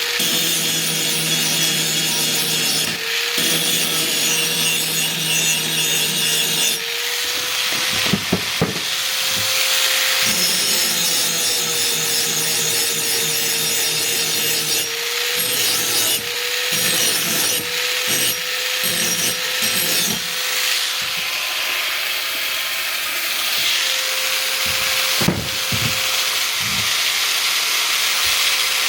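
A power grinder running with a steady motor whine while an axe's steel edge is ground on it, a continuous rasping grind that swells and eases as the blade is worked.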